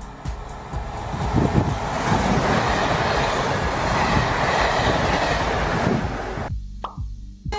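Train passing close by, a steady rush of wheels on the rails with irregular low knocks. The sound cuts off abruptly about six and a half seconds in.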